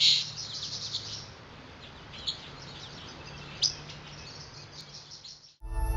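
Birds chirping: many short, high calls, the loudest right at the start and two sharp ones a little after two and three and a half seconds in, over a faint low hum. The birdsong stops just before the end and music begins.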